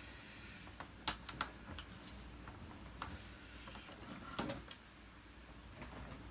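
Light clicks and knocks of plastic vacuum-cleaner parts being handled, with a quick cluster of clicks about a second in and a duller knock past the middle.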